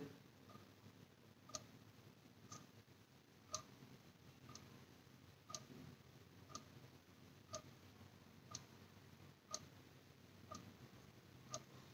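Faint clock ticking about once a second, every other tick slightly louder. Otherwise near silence.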